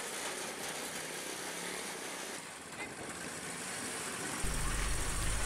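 Homemade car powered by a secondhand Chinese motorcycle engine running as it drives with passengers aboard, heard under a steady hiss. A louder low rumble comes in near the end.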